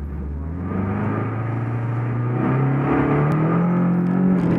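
Subaru STi rally car's turbocharged flat-four engine heard from inside the cabin, revs climbing slowly and steadily while the car is held stationary at the stage start.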